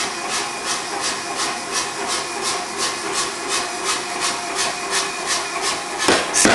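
Forging power hammer running idle with regular hissing pulses, about three a second. About six seconds in, it starts striking the red-hot steel bar with heavy, sharp blows at the same pace.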